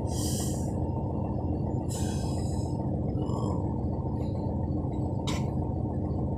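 Garbage truck running with a steady low rumble and drone, muffled through a closed window. Short hisses come near the start and about two seconds in, and there is a sharp click about five seconds in.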